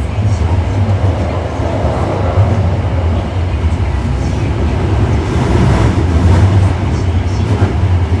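Interior running sound of an Osaka Metro 1300 series subway train with Toyo IGBT VVVF equipment, travelling through the tunnel between stations. A steady, heavy rumble of wheels and running gear, swelling a little louder past the middle.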